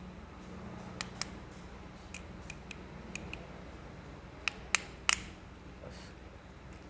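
About ten sharp metallic clicks and taps of hand tools and parts as a motorcycle's timing chain adjuster is refitted and locked, with the engine not running. The three loudest come close together a little past the middle.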